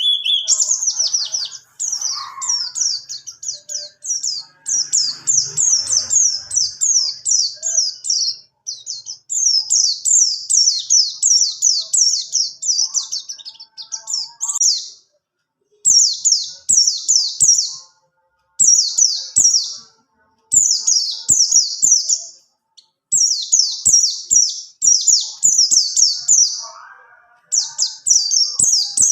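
Pleci buxtoni (white-eye) singing a fast rolling song: quick strings of high, falling chirp notes in phrases a second or two long, separated by short pauses. Faint ticks sound in the background during the second half.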